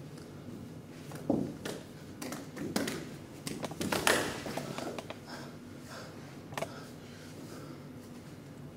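Scattered soft knocks and taps of a barefoot performer's hands, feet and knees on a tiled floor as he crawls and shifts his weight, over a steady low hum of the hall, with the loudest knocks about a second and a half and four seconds in.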